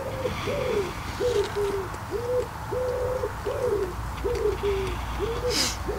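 An animal giving a steady series of short, arched calls on one pitch, about two a second.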